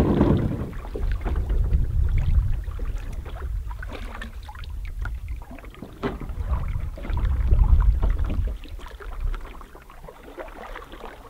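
Canoe paddles dipping and water lapping at the shore as a canoe is paddled away, under a gusty low rumble of wind on the microphone that swells and fades.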